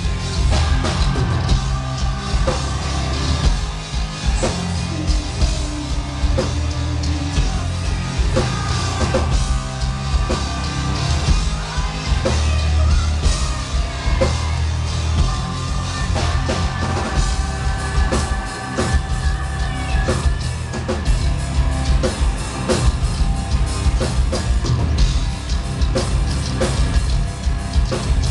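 Live gothic metal band playing loud, with pounding drums, distorted guitars and bass, and a woman singing over them.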